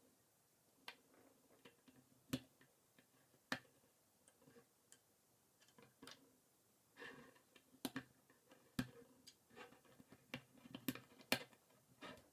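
Plastic K'NEX rods and connectors clicking as they are snapped together and handled on a tabletop: scattered single sharp clicks, with busier bursts of clattering about seven seconds in and near the end.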